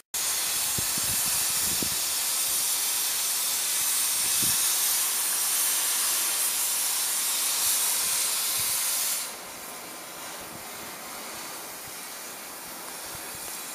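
Cutting torch hissing steadily while cutting welded-on wheel chocks off a flat car's deck. It drops to a quieter hiss about nine seconds in.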